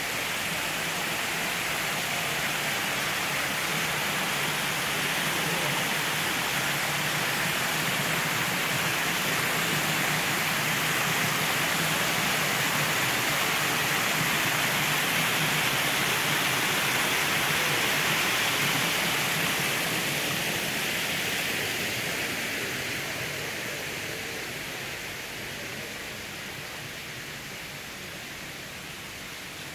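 Water spilling over rocks in a small garden waterfall, a steady rush that swells toward the middle and fades away over the last several seconds.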